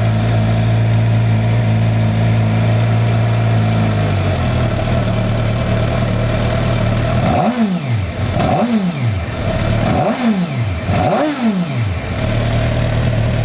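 2006 Suzuki GSX-R750's fuel-injected inline-four engine idling; its idle drops slightly about four seconds in. In the second half come four quick throttle blips, each revving sharply up and straight back down to idle.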